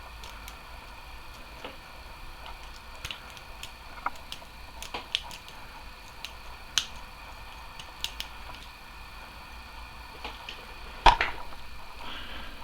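Irregular small metallic clicks and ticks of a rake pick being worked up and down against the pins of a padlock, held under a tension wrench, with one louder click about eleven seconds in.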